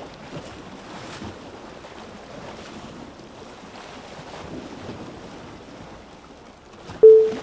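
Sea ambience: a faint, steady wash of waves and wind. Near the end, a brief loud call on one flat pitch cuts in.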